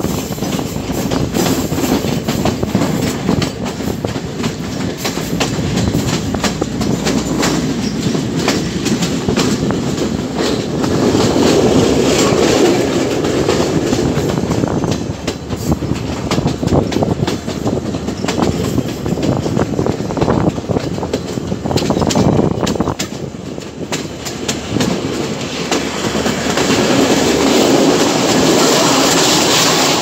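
Sri Lanka Railways Class S14 diesel multiple unit running at speed, heard from inside at an open window: a steady loud rumble of wheels on rails with a constant clatter over the rail joints.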